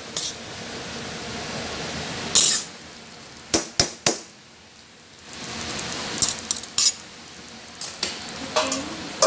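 Metal utensil clinking and knocking against a cooking pot several times, over a low steady hiss of the rice cooking on the stove.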